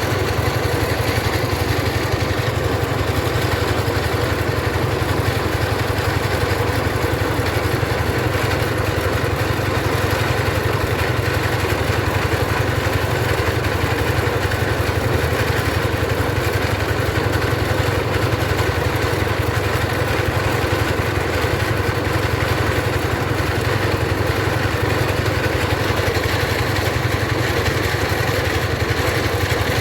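Engine-driven mobile rice mill running steadily: an unchanging mechanical drone from the engine and milling machinery.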